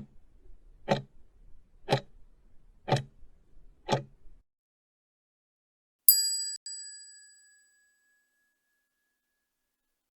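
Quiz countdown timer sound effect: five sharp ticks, one a second, then a bright bell-like ding sounded twice in quick succession and ringing out, signalling that the answer time is up.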